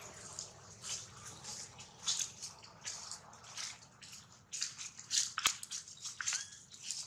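Dry fallen leaves crackling and rustling in short, irregular bursts as young macaques shift about on them, with one sharp click a little past the middle.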